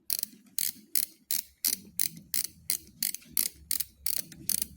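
BOA lacing dial on a Klim boot being turned, its ratchet clicking in an even run of sharp clicks, about three a second.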